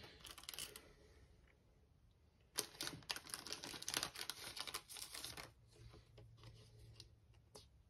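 Thin plastic card sleeve crinkling and rustling as a trading card is handled and slid into it, a brief flurry near the start and a longer, busier one from about two and a half seconds in, then only faint handling.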